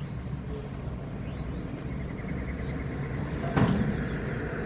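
Diesel engine of a Mack McNeilus front-loader garbage truck running with a steady low rumble, rising a little in level, with one sharp bang about three and a half seconds in.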